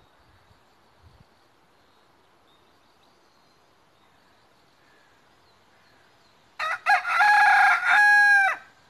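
A rooster crows once, near the end: a couple of short opening notes, then a long held call that dips briefly and falls away at the close. Before it there is only faint yard background.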